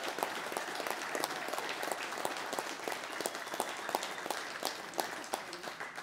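Audience applauding, a dense patter of handclaps that thins out and grows quieter toward the end.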